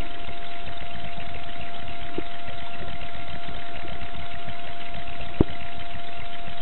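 An engine idling steadily with uneven low pulsing, a constant thin whine over it, and a single sharp click near the end.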